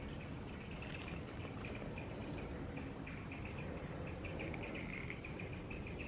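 Insects chirping: short, high-pitched chirps repeating quickly and continuously, over a steady low rumble of background noise.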